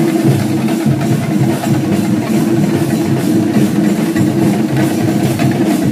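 Loud festival drumming: a percussion ensemble beating a dense, steady rhythm over a continuous low hum.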